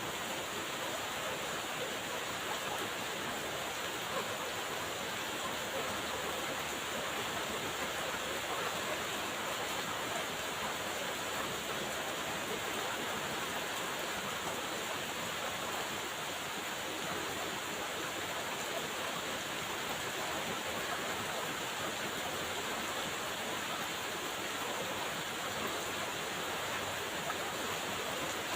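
Steady rainfall: an even, unchanging hiss of rain.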